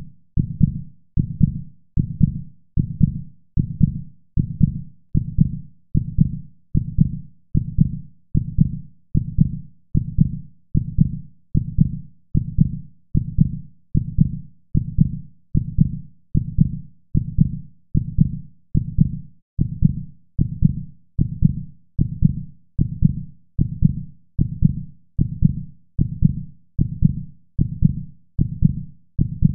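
A low, heartbeat-like thump repeating steadily, a little faster than once a second, each beat dying away quickly.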